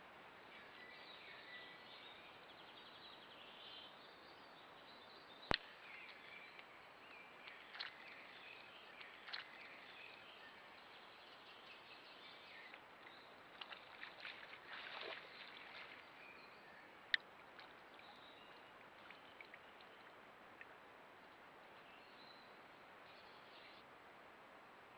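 Faint forest-pool ambience from a trail camera: a steady low hiss with faint chirps, a few brief splashy rustles around the middle, and two sharp clicks, about five and seventeen seconds in.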